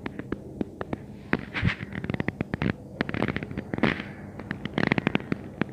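Metal spoon turning and lifting a chopped vegetable and chickpea salad in a glass bowl: an irregular run of clicks and crackles as the spoon knocks against the glass and the wet pieces shift.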